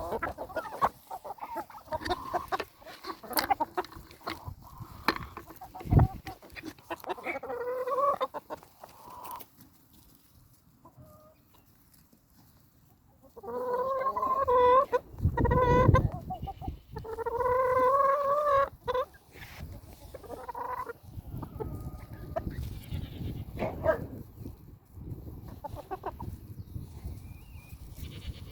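Chickens clucking in several runs of calls, with a quiet spell about ten seconds in and a few low thumps.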